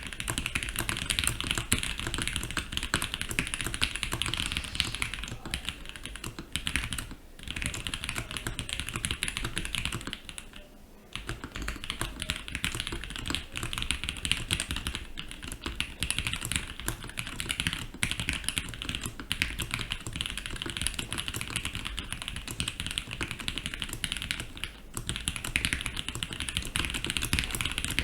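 Continuous fast typing on a mechanical keyboard with stock SP-Star Ayara linear switches, a polycarbonate plate, plate and case foam, and GMK keycaps: a dense run of keystroke clacks, with brief pauses about 7 seconds in, around 10 to 11 seconds, and near 25 seconds.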